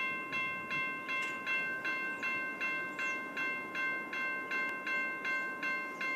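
Safetran type 2 electronic railroad-crossing bell ringing at an activated grade crossing, evenly about two and a half dings a second, with a steady high tone beneath the dings.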